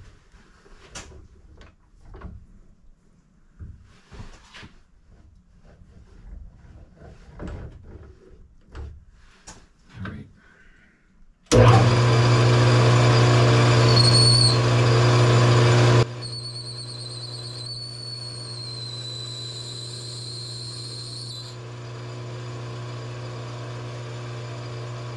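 A few light clicks and knocks, then about eleven seconds in a metal lathe starts and a high-speed-steel boring tool meets the inside of a steel bore. For about four seconds there is a loud rubbing noise over the lathe's hum: the underside of the tool hitting the bore diameter because the bit sits below centre height. The noise then drops to the lathe running steadily with a faint high whine.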